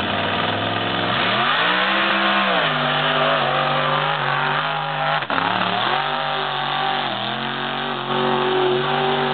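Chevy S10 mud bog truck's engine at full throttle through the mud pit, its pitch climbing steeply about a second in and held high. The revs drop sharply for a moment about five seconds in, then climb again and step up once more near the end.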